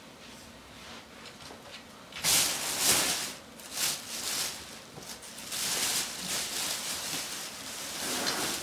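Plastic bag of bread rustling and crinkling as bread is pulled out of it, in irregular bursts starting about two seconds in.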